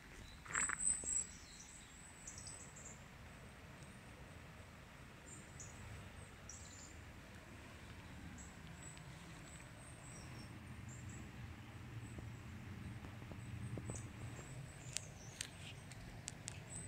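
Faint, high birdsong: short chirps scattered throughout, over a low steady rumble. A few sharp clicks come near the end.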